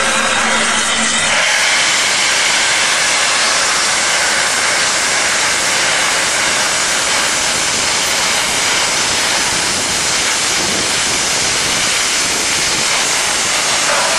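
Steam locomotive No. 71000 blowing steam from its open cylinder drain cocks: a loud, steady hiss.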